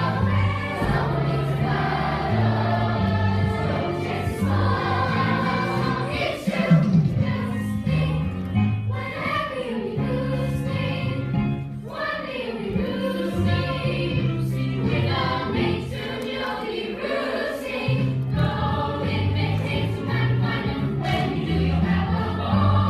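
Music: a group of voices singing a musical-theatre song over an instrumental accompaniment with a moving bass line.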